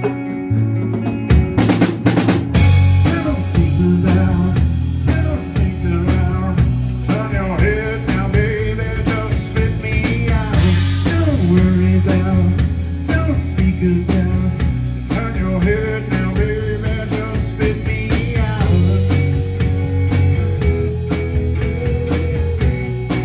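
Live band playing a blues-rock number on drum kit, bass and guitar. A few drum hits about two seconds in lead into a steady beat with fast cymbal ticks, while the guitar bends notes over it.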